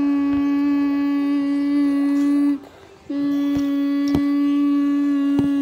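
A person humming one long, steady note that breaks off about two and a half seconds in and starts again at the same pitch half a second later. Three sharp taps come during the second hum.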